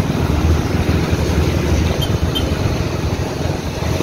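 Road noise from a moving vehicle on a wet road: a steady low rumble with a hiss over it.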